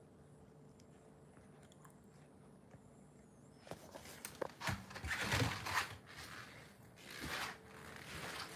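Quiet room tone for the first few seconds, then irregular crunching and rustling handling noises from about halfway through, loudest around five to six seconds in.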